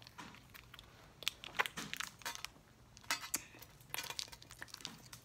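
Plastic candy wrapper crinkling in short, scattered bursts as a small wrapped candy is handled and unwrapped.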